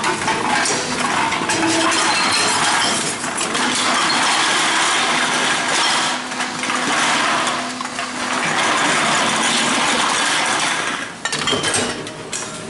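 Tomra reverse vending machine taking in empty glass bottles, with loud glass clattering and clinking as the bottles tumble into its bin. It comes in three long stretches with short lulls between them.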